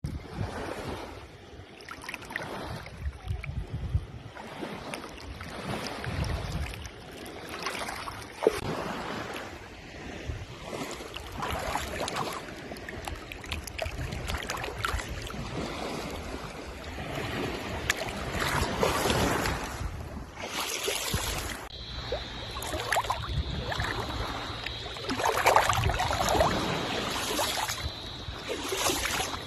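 Seawater washing and splashing at the shore, in irregular surges, with wind gusting on the microphone. About three-quarters of the way through, a faint steady high whine joins in.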